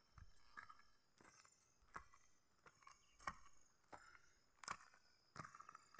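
Near silence outdoors, with a few faint, irregular clicks and faint high chirping.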